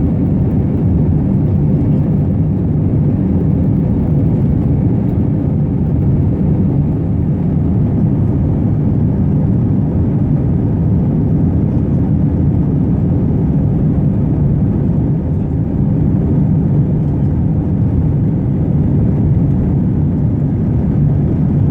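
Airbus A321 passenger cabin noise heard from inside the cabin: a steady, loud, low rush of jet engines and airflow with no change in pitch or level.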